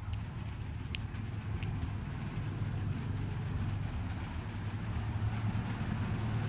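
A steady low rumble, with a few faint clicks in the first two seconds.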